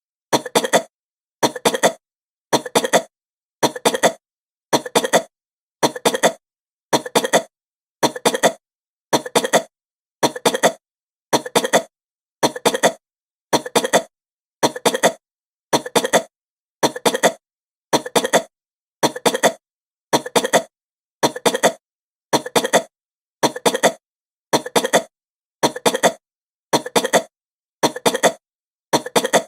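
A woman coughing: a rapid series of short coughs at an even pace, with dead silence between them.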